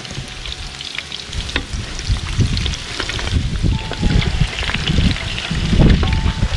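Pork skins deep-frying in hot lard in a large aluminium pot: steady sizzling with many sharp crackling pops as the skins begin to burst open and puff. A wooden paddle stirs them, adding low stirring and scraping noises that grow heavier in the second half, loudest near the end.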